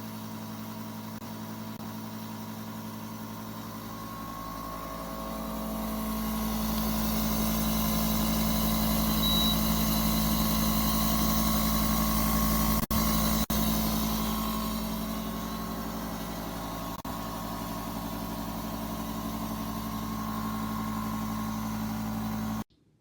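Frigidaire 50-pint dehumidifier running, a steady hum from its compressor under the rush of its fan. It grows louder about five seconds in and eases back a little after about fifteen seconds, with two brief dropouts near the middle, and cuts off just before the end.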